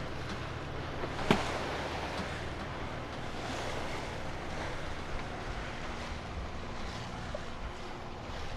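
Wind and sea rushing past a yacht under way, a steady wash of water along the hull, with one sharp knock about a second in.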